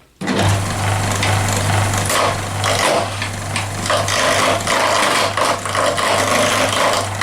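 Lathe starting up about a quarter second in, its electric motor running with a steady hum, while a hand-held cutting tool scrapes and chatters against the spinning handle blank, roughing it down to round.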